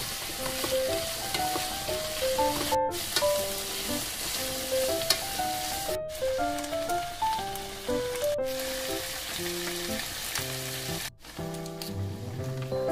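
Bacon, onion and mushrooms sizzling in a frying pan, with light background music over it. The sizzle breaks off for an instant four times.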